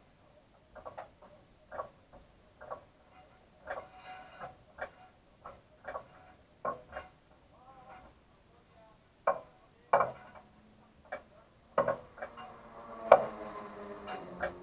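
Irregular sharp metallic clicks and knocks, each ringing briefly, heard inside a parked race car with its engine silent; a low steady hum comes in near the end.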